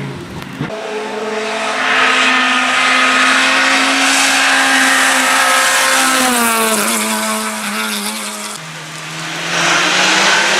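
Hill-climb race car engine at high revs, getting loud about two seconds in. Its pitch falls around the middle as the car slows, then climbs again near the end as it accelerates away.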